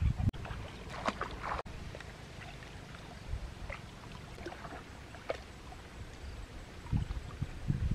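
Shallow stream water splashing and trickling in short irregular bursts, with a few low thumps.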